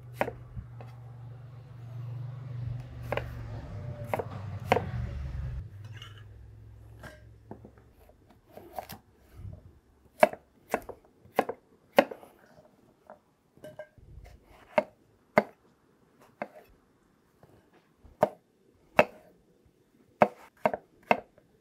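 Chef's knife dicing onion, carrot and apple on a wooden cutting board: irregular sharp knocks of the blade on the board, some of them quick runs of chops. A low rumble sits under the chopping for the first several seconds, then fades.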